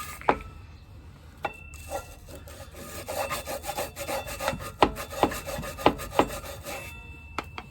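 Nylon brush scrubbing a motorcycle rear brake caliper in quick irregular strokes, with sharp clicks and knocks as the brush and tool hit the metal.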